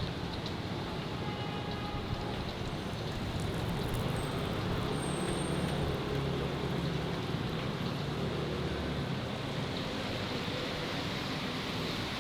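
Street traffic: steady road noise, with a vehicle's low engine rumble swelling in the middle.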